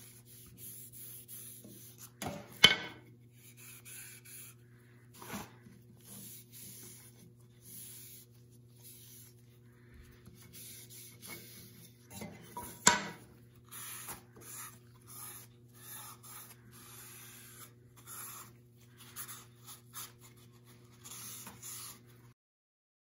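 A rag rubbing wipe-on polyurethane finish onto a small wooden picture frame, soft short strokes of rubbing one after another. Two sharp knocks about ten seconds apart stand out, and a low steady hum runs beneath until it cuts off near the end.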